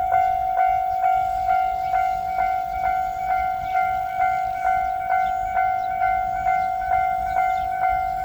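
Japanese railway level-crossing alarm ringing its electronic 'kan-kan' bell tone, a steady metallic ring struck about twice a second, warning that a train is coming.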